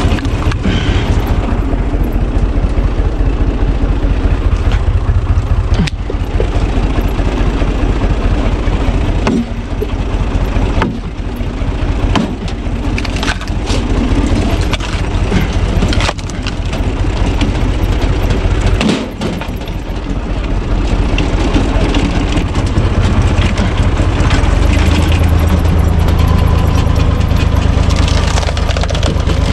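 Universal 445 DT tractor's diesel engine running steadily under load, driving a cone (screw) log splitter. Logs split with repeated sharp cracks of wood as the cone bores into them.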